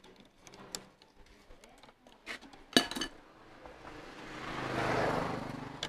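A few light clicks and one sharp metallic clink as a hand tool works copper coil wire into the slots of an electric motor stator. Then a passing vehicle swells up and fades away over about two seconds.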